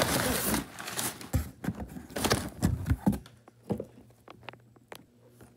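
Cardboard shipping box flaps and crumpled brown packing paper being handled and rustled, with a string of knocks and taps that thin out to a few clicks and fall quiet over the last couple of seconds.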